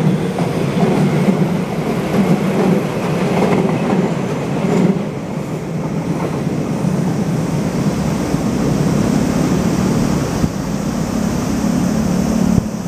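JR West 221 series electric train running past and moving away, a steady low rumble of wheels and running gear on the rails.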